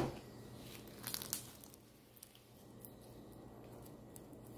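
Homemade slime being handled, stretched and squeezed, with a short run of faint sticky crackles about a second in.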